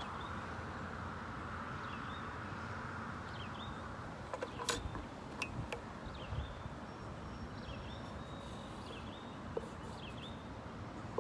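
Steady hum of road traffic, with a bird giving short chirps every second or two and a few sharp clicks about halfway through.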